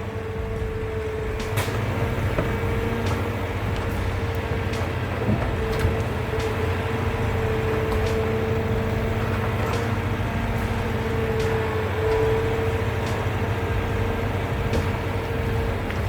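The engine of a tracked forestry forwarder runs steadily: a low rumble with a steady high whine over it and a few light knocks.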